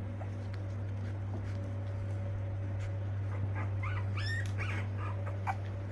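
Puppies whimpering: a cluster of short, high-pitched cries and yips in the second half, over a steady low hum.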